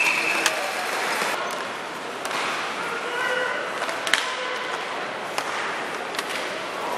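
Hockey game on the ice in an arena: steady crowd noise with sharp clacks of sticks and puck, and skates scraping.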